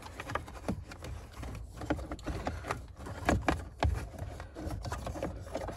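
Hands pushing a wiring harness and its plastic connectors into the cavity behind a car's centre console: irregular rustling, scraping and small plastic clicks and knocks, a couple of them louder about halfway through.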